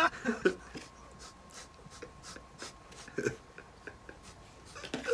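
Quiet, breathy laughter: short snorts and gasping breaths coming in irregular bursts.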